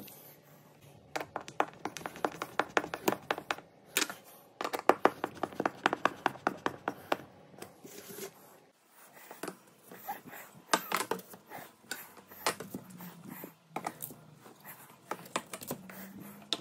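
Hand screwdriver turning screws into a wall to fix a cue rack. It gives two runs of rapid, evenly spaced clicks at about five a second, then scattered clicks and knocks.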